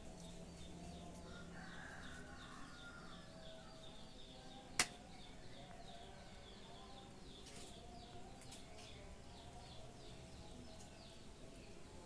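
A small bird chirps rapidly and repeatedly over faint background hum. One sharp click comes about five seconds in.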